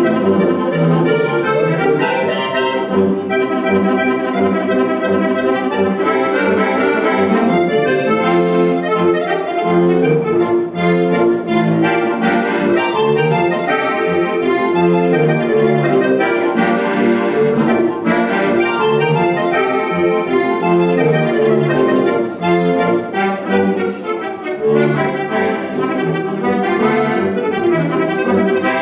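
Styrian button accordion (Steirische Harmonika) playing a lively Tyrolean folk tune, with a regular bass-and-chord accompaniment under the melody. Its Limex MIDI system layers sound-module voices such as brass over the accordion reeds.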